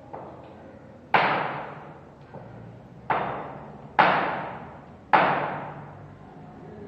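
Four sharp hammer-like blows, each ringing out and fading over about a second, the third and fourth coming closer together.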